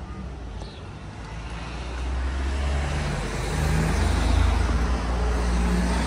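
A motor vehicle passing close by: engine hum and road noise that swell from about two seconds in, peak a second or so before the end, then begin to fade.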